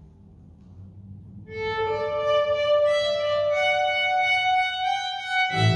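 Folk string band of violins playing a slow introduction in long held notes, starting about a second and a half in; a double bass comes in with low notes near the end.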